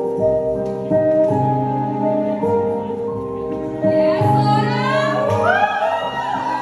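Music played for partner dancing: held chords over a repeating low bass note, with a singing voice in a wavering, arching melody coming in about four seconds in.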